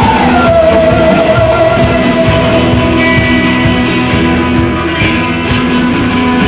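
Rock music with electric guitar holding sustained notes, one sliding down in pitch just after the start, over a steady beat.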